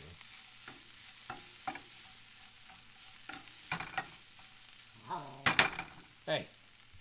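Diced onion and jalapeño sizzling in a sauté pan while a spatula stirs and scrapes them across the pan, in a series of scraping strokes over a steady sizzle. The loudest strokes come about five and a half seconds in.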